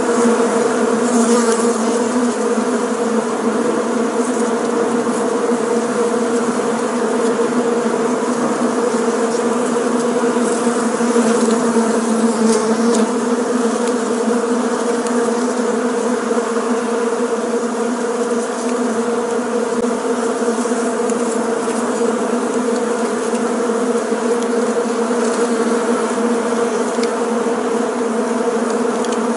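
Bees buzzing in flight, a steady, unbroken drone.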